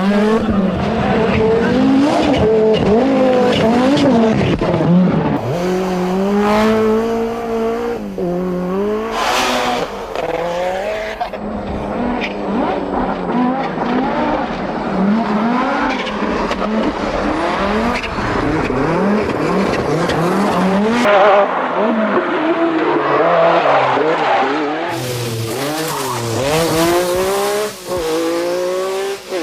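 1980s Group B rally cars driven flat out, engines revving up and dropping back through gear changes again and again. The sound changes abruptly several times as one car gives way to another.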